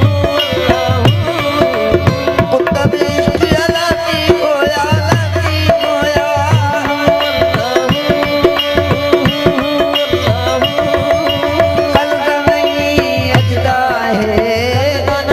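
Live Sufi devotional music: a harmonium holding steady chords over the regular beat of a hand drum, with a man's voice singing over it.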